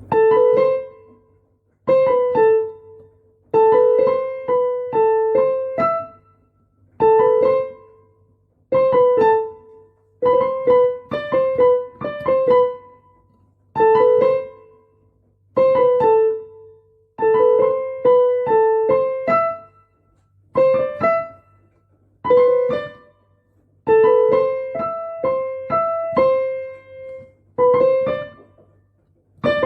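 Piano playing a simple melody in short phrases of a few notes, each phrase starting with a firm chord, roughly every two seconds with brief pauses in between.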